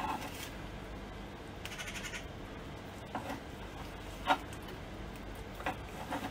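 Quiet handling as butcher's twine is pulled and tied around a turkey crown on a rotisserie spit: a brief rasp about two seconds in and a few soft clicks.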